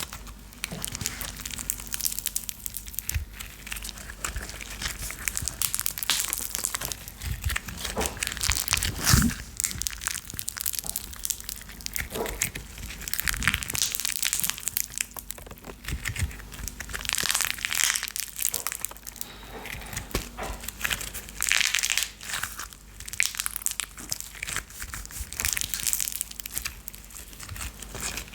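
Close, continuous crackling and crinkling with many irregular sharp pops: the crackle of a fireplace fire as presented for ASMR.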